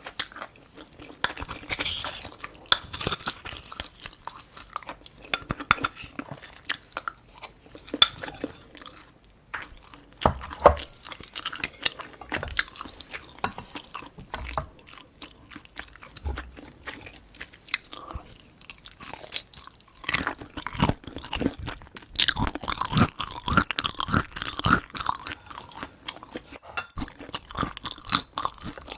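Close-miked chewing of food: a dense, irregular run of wet chews and small crunchy bites, getting busier about two-thirds of the way through.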